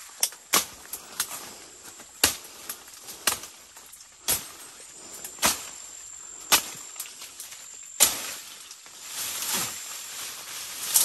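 Parang (machete) chopping through jungle brush and branches: sharp separate strokes, irregular, about once a second.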